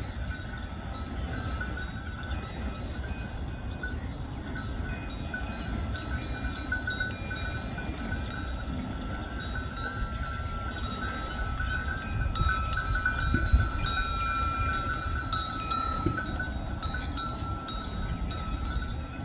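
Bull-driven Persian wheel (rehat) turning: a continuous high ringing squeal from the wheel's gearing over a low rumble of the turning mechanism, with a louder knock about two-thirds of the way through.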